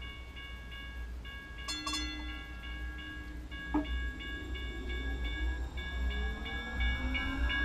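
Light rail train pulling away from a station: its traction motors whine in several rising tones from about halfway through as it picks up speed. Under it runs a repeating electronic beeping tone, about three beeps a second, with a couple of short clicks early on and a steady low rumble.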